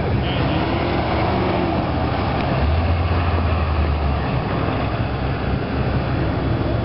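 1984 Corvette C4's 5.7-litre V8 engine running hard through an autocross cone course, heard from trackside over a steady hiss. Its pitch rises and falls in the first second or so, and a strong low drone comes in about two and a half seconds in and holds for over a second.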